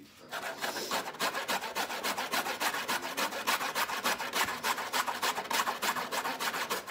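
Peeled horseradish root grated on a metal box grater: a rapid, even run of rasping strokes that starts about half a second in.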